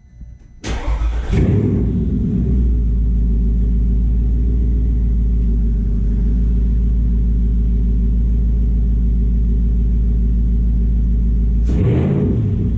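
Porsche Cayenne S 4.5-litre V8 starting about a second in, then idling steadily and loudly. The exhaust now runs through newly fitted aftermarket primary catalytic converters rather than open headers.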